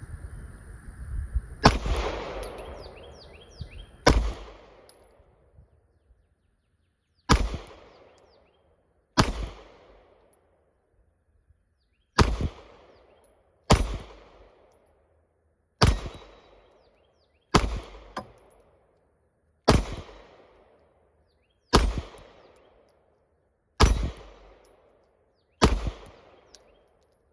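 A Springfield Hellcat Pro 9mm pistol is fired in slow, deliberate single shots: twelve in all, about one every two seconds, each crack trailing off in an echo.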